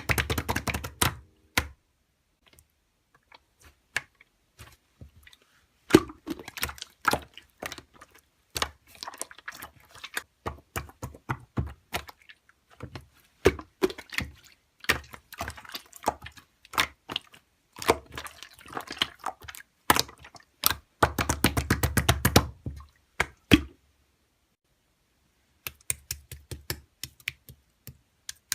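Slime being squeezed and worked by hand, giving irregular sticky clicks and pops in clusters, with a dense run of rapid crackling about three quarters of the way through and a couple of short pauses.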